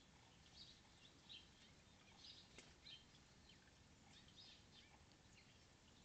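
Faint small-bird chirps, short and high, repeating irregularly every second or so, with one sharp click about two and a half seconds in.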